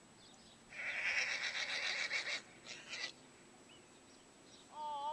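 A horse blowing a loud fluttering snort through its nostrils, lasting about a second and a half, followed by two short puffs. A brief wavering call comes near the end.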